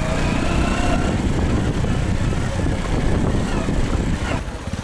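Small motorcycle engine running steadily while riding a rough dirt track, with a knock about four and a half seconds in.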